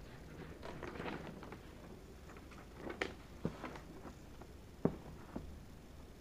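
Faint paper rustling as a spiral-bound notebook is handled and its page turned, then a few light clicks and knocks from the notebook being handled on the table.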